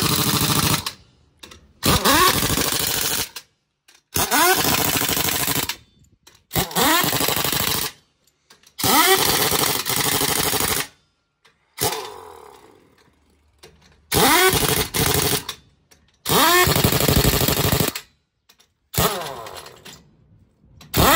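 Pneumatic impact wrench running in repeated bursts of a second or two. Each burst spins up with a rising whine and then hammers rapidly, as the lug nuts on a truck wheel are run on or off during a tyre change. There are about nine bursts with short pauses between them.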